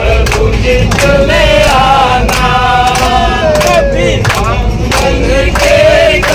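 A group of men singing a devotional chant together, clapping along at about two claps a second.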